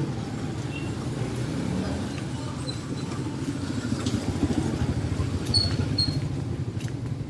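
A vehicle engine running steadily close by, a low rumble with rapid pulsing, with a couple of short high chirps a little past the middle.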